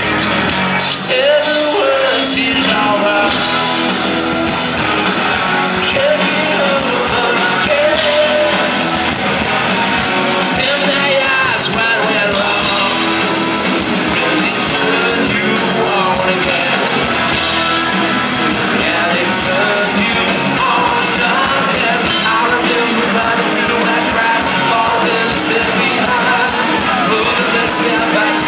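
Live rock band playing a song: male lead vocals over electric guitars, bass, keyboard and drums, loud and steady throughout.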